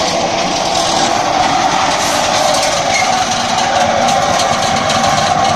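Diesel engine of a mobile egg-laying concrete block-making machine running steadily.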